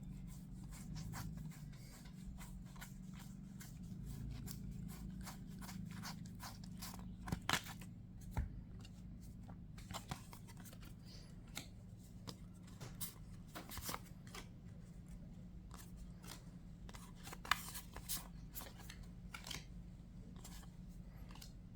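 Yu-Gi-Oh! trading cards being handled and flipped through: faint, scattered clicks and rustles of card stock, with a few sharper snaps.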